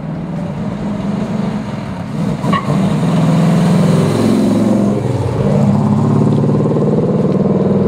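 1964 Pontiac GTO's 389 V8 with Tri-Power carburettors, running through a Magnaflow stainless exhaust as the car accelerates past. It gets louder about three seconds in, and the engine note dips briefly around five seconds in before it picks up again.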